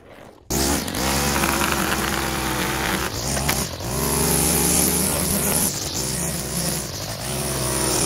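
Small gas engine of yard equipment running hard, its pitch rising and falling as the throttle is worked. It cuts in after a brief gap about half a second in.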